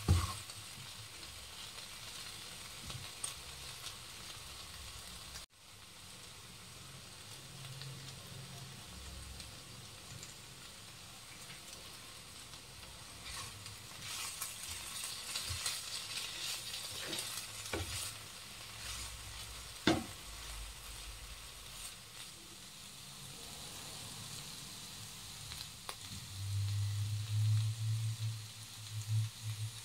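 Potato and okra stir-fry sizzling in a nonstick wok as it is stirred with a spatula, with a few sharp knocks of the spatula on the pan. A low hum comes in near the end.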